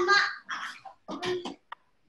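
A young child's voice in a few short high-pitched bursts of untranscribed vocal sounds, with brief pauses between them.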